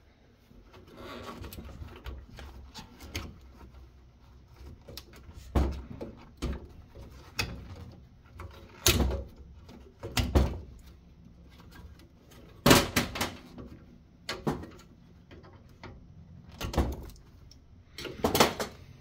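Irregular clicks, knocks and clatter of a UPS being taken apart by gloved hands: wires and the metal chassis handled on a steel workbench, with several sharper knocks, the loudest about two-thirds of the way through.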